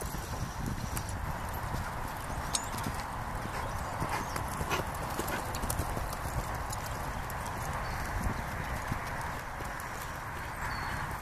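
Horse's hoofbeats on arena sand at a canter.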